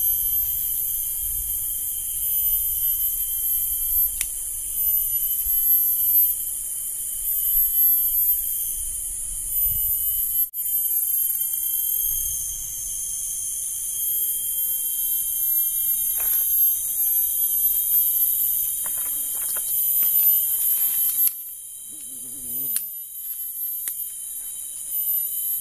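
A shrill, steady chorus of forest insects, several high-pitched tones held together over a lower steady tone, dropping in level a little before the end. Faint rustles and light snaps of twigs and grass being handled on the ground.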